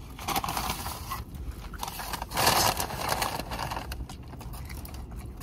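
Paper food bag rustling and crinkling as it is handled, in two bursts, over a low steady rumble.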